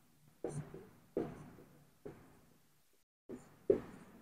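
Marker pen writing on a whiteboard: a few faint, short taps and strokes at uneven intervals, the loudest near the end.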